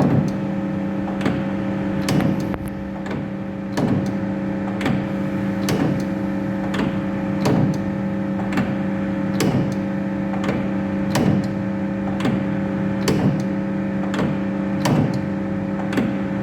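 CNC lathe tool turret indexing over and over under a steady drive hum, with a sharp clunk about once a second as it steps and locks on each station.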